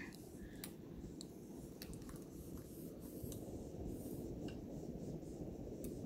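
Hunter Mayfair ceiling fan running: a steady low rush of the motor and spinning blades, with a few faint ticks scattered through.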